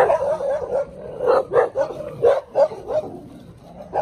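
Dogs barking in quick runs of short, sharp barks, two or three a second, with brief pauses between the runs.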